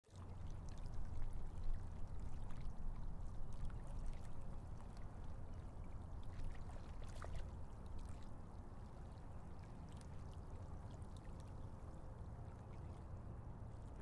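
River water flowing and lapping, a steady low wash with many small trickles and splashes, a little louder in the first few seconds.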